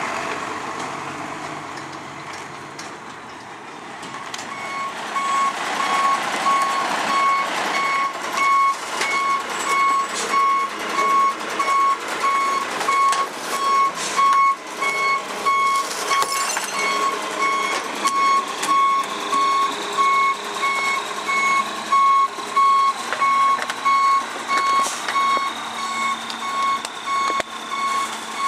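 A garbage truck's warning beeper sounding about once a second, starting a few seconds in, over the running truck, with scattered knocks and clatters as it unloads.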